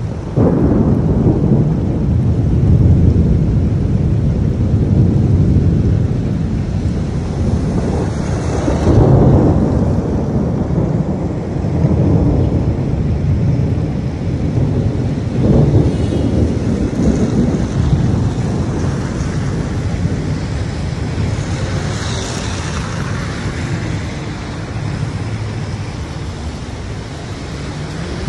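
Thunder from a close lightning strike breaks suddenly about half a second in and rolls on as a long low rumble, swelling again several times before slowly easing, over steady rain.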